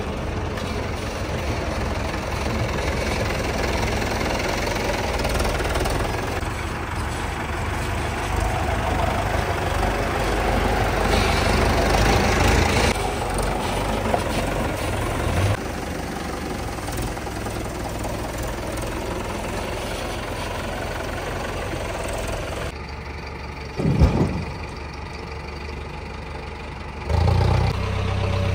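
Diesel engines of tractors and a backhoe loader running steadily during mud loading, with a single loud thump near the end.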